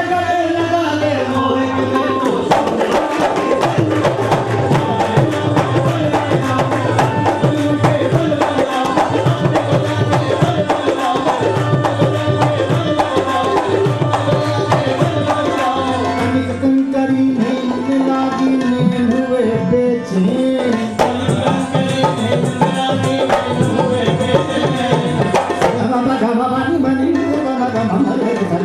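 Instrumental passage of Indian devotional music: a hand drum plays fast, dense strokes over a harmonium melody with held notes and a low drone.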